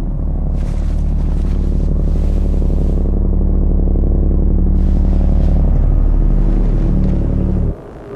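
Instrumental passage dominated by a loud, deep, droning bass synth holding steady pitches, which cuts off abruptly near the end, leaving a quieter held tone.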